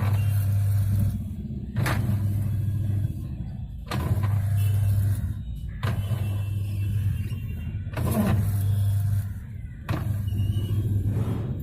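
Whirlpool White Magic 1-2-3 washing machine agitating: the motor hum switches on and off in stretches of a second or two, with a sharp 'kat' knock about every two seconds as the drive takes up. The knocking is from a faulty gearbox.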